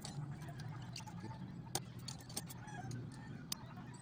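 Scattered sharp clicks and taps of small hand work on a phone battery and its circuit board, over a steady low hum, with chickens clucking faintly in the background.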